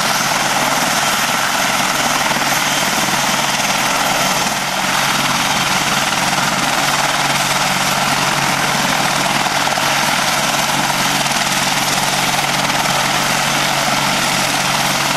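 Apache AH Mk.1 attack helicopter running on the ground, its twin RTM322 turboshaft engines and main rotor turning steadily: a loud, even turbine whine over constant rotor noise.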